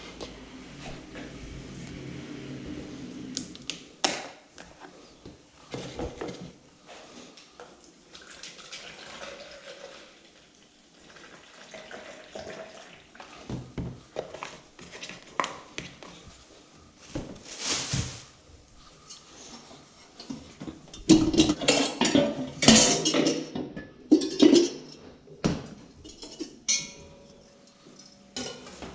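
Dishes, pans and utensils being handled: a run of separate knocks, clatters and clinks, densest and loudest about three-quarters of the way through.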